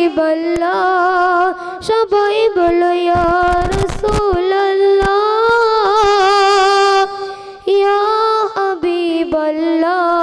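A single high voice singing a Bengali Islamic naat-ghazal unaccompanied, drawing out long notes with a wavering ornament. A brief noisy burst comes about three seconds in.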